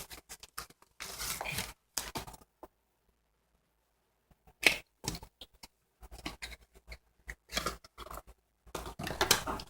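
Packaging of a 3x3 speedcube being handled and opened by hand: irregular crinkles, rips and small clicks, with a short pause in the middle.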